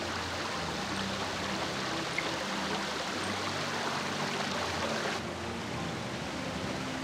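Shallow woodland stream babbling and rushing over stones. The water noise drops away about five seconds in.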